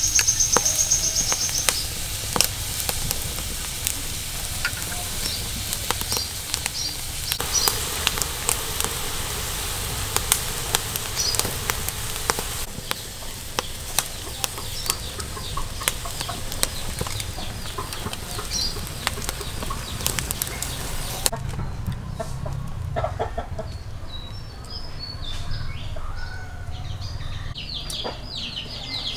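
River mussels grilling in their shells over an open fire: a steady sizzle with crackling pops as the juices bubble. About two-thirds of the way through it cuts to quieter surroundings, with chickens clucking and birds calling.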